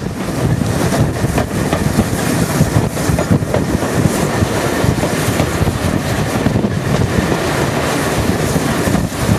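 Steam-hauled train running, heard from an open carriage window: a steady rumble and clatter of the train in motion, with wind buffeting the microphone.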